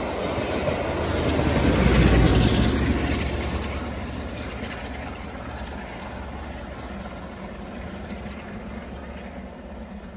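Passenger coaches of a passing train rolling by on the rails, a steady rumble that swells to its loudest about two seconds in, then fades gradually as the train draws away.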